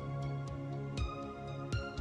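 Calm instrumental background music: a held low bass note under a few struck notes that ring on.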